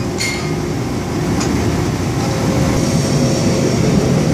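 Steady low rumble of the hydraulic forming press and shop machinery running. A sharp metal clack comes just after the start and another about a second and a half in, and a faint whine comes in about two seconds in.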